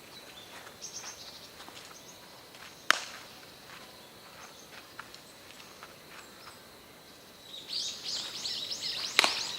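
Two sharp cracks of a baseball impact, about six seconds apart, over quiet outdoor background. Near the end a quick run of high chirps starts.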